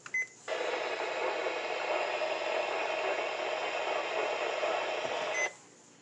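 Weather radio: a short button beep, then about five seconds of hissing radio static that cuts off with a second beep.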